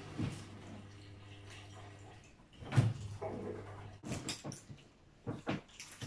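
A long knife cutting down through a slab of almond nougat between wafers and knocking on the wooden board beneath, with a loud thump about three seconds in and several short sharp knocks in the last two seconds. A low steady hum runs under the first part.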